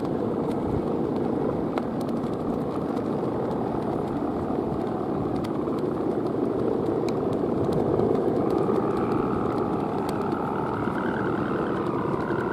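Steady droning hum of a big Balinese kite's guangan, the humming bow strung across its head, vibrating in the wind. About two-thirds of the way in, wavering higher tones join the drone.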